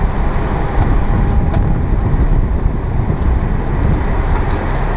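Steady wind buffeting the microphone over the running motor of a sport-fishing boat under way and the rush of its wake along the hull.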